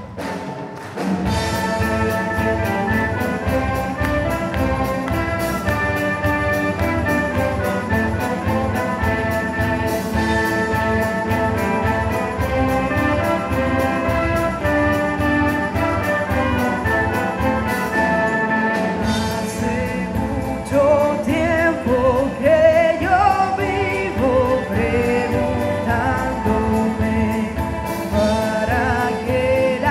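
Music with a steady beat, an orchestra with strings playing; a singing voice comes in about twenty seconds in.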